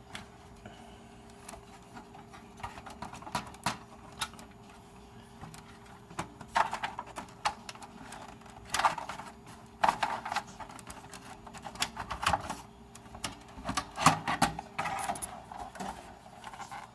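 Irregular clicks, knocks and scraping of plastic and metal from hands working inside a desktop computer case: ribbon cables being unplugged and the power supply being slid out. The handling noises come thicker in the second half.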